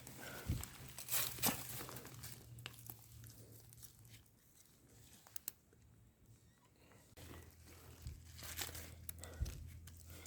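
Irregular rustling and crackling of dry leaves and twigs, with scattered sharp snaps, over a low steady hum.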